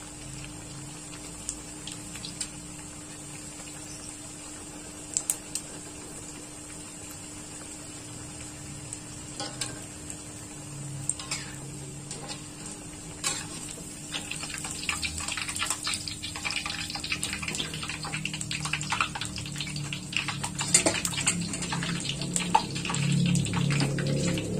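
Tempeh deep-frying in hot oil in a wok, sizzling steadily, with a few sharp clicks of a metal skimmer. From about halfway through the crackle grows denser and louder as the pieces are stirred and scooped out with the skimmer.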